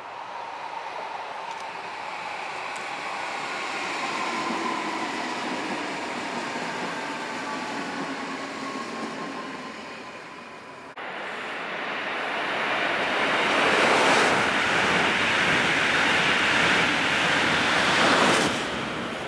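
Trains passing close below: rolling and running noise with a faint, slowly falling tone, then after an abrupt cut a louder rush as an electric multiple unit passes underneath. The rush is loudest near the end and stops suddenly.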